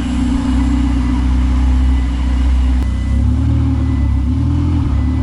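Ferrari 488 Spider's twin-turbo V8 running at idle, a steady low engine note that shifts slightly about three seconds in.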